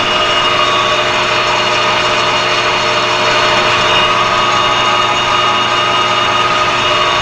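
Metal lathe running at speed, its gearing giving a steady whine of several tones, while the tool takes a facing cut across a half-inch metal plate.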